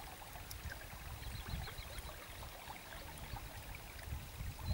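River water running past the moored boat and over the gravel bank: a soft steady rush with a low rumble underneath.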